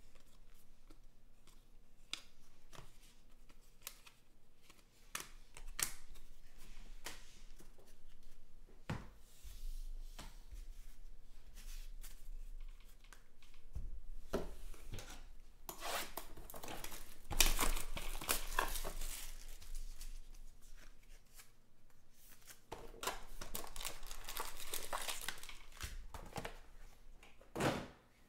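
Trading cards clicking and sliding against each other as they are sorted, then card-pack wrappers being torn open and crinkled in several loud rustling stretches from about halfway through.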